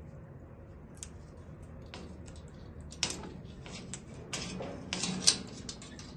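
Irregular light clicks and taps, growing denser from about three seconds in, with sharper knocks at about three and five seconds in.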